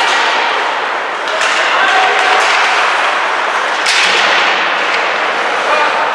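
Sounds of an ice hockey game in an echoing rink: a steady wash of crowd voices and on-ice noise, with two sharp cracks from the play about one and a half seconds and four seconds in.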